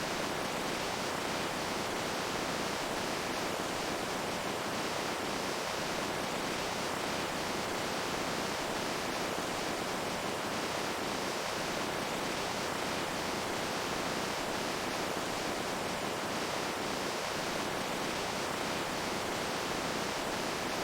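Running water with a steady, unchanging rush.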